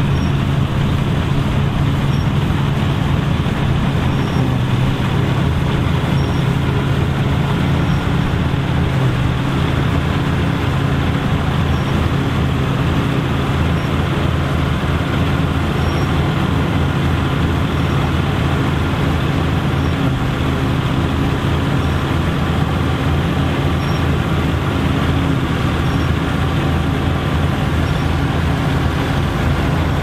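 Massey Ferguson 35 tractor engine running steadily under load while pulling a JF MS70 trailed combine harvester, mixed with the steady mechanical noise of the harvester's working parts as it harvests barley.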